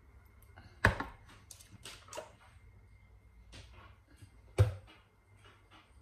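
Kitchen handling sounds of a metal spoon and a yogurt tub as yogurt is spooned onto raw chicken in a plastic bowl: two sharp knocks about four seconds apart, with softer clicks and scrapes between.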